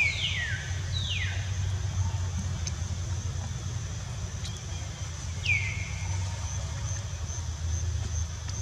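Steady low rumble, like distant traffic, under a few high whistled calls that glide sharply downward: two right at the start, one about a second in, and another about five and a half seconds in. A faint, steady high-pitched tone runs underneath.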